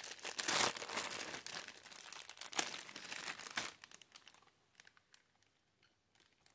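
Clear plastic bags crinkling and rustling as they are handled, with a couple of sharper crackles; the crinkling dies away about four seconds in.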